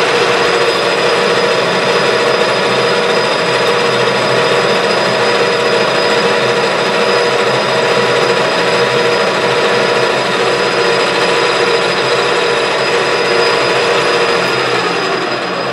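Metal lathe running steadily with a steady gear whine while an indexable-insert tool turns down a 4140 pre-hardened steel rod. The sound starts to die away near the end as the spindle slows.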